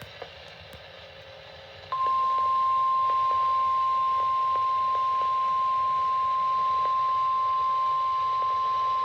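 NOAA Weather Radio 1050 Hz warning alarm tone: one steady, loud single-pitch tone that starts sharply about two seconds in and holds, after a short stretch of faint radio hiss. The tone signals that a warning message, here a severe thunderstorm warning, follows.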